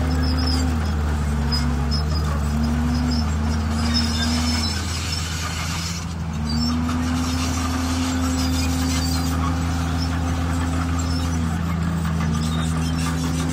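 D51PX bulldozer's diesel engine running under load while pushing stone: a steady low drone with a higher whine above it that dips and rises in pitch several times, then holds steady for several seconds in the middle.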